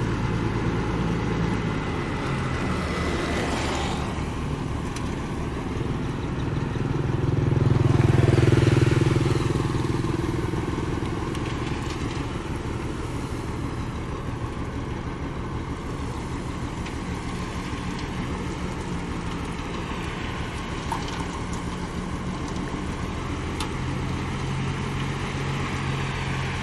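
Heavy construction machine's engine running steadily, growing louder for a few seconds about eight seconds in.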